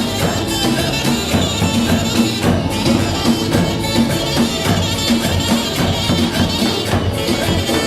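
Loud folk-style dance music with a steady beat and tambourine-like percussion.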